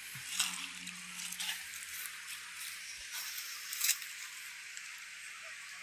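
Water: a steady hiss with scattered small patters and ticks.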